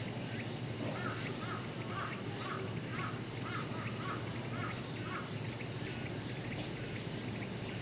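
A bird calling in the background, a run of about eight short repeated notes, roughly two a second, that stops about five seconds in, over a steady low outdoor hum.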